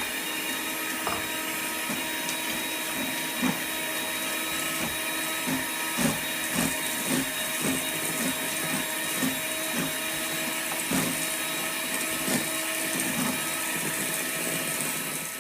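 Electric mixer running steadily, creaming butter, shortening and sugar, with irregular knocks throughout; it is switched off at the end.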